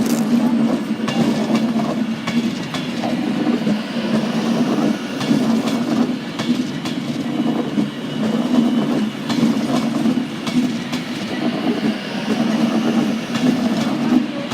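Train moving through the station: a steady low drone with wheels clicking over rail joints.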